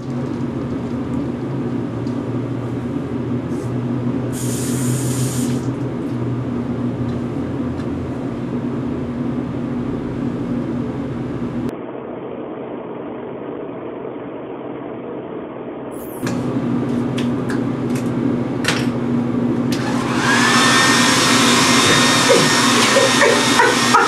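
A steady motor hum, quieter for a few seconds in the middle. About twenty seconds in, a handheld hair dryer starts with a loud rush of air, blowing out the baby powder loaded into its nozzle, with a few clicks near the end.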